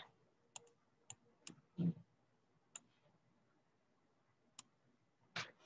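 A few isolated computer mouse clicks, spaced irregularly, with two short, soft vocal sounds from the person at the microphone, one about two seconds in and one near the end.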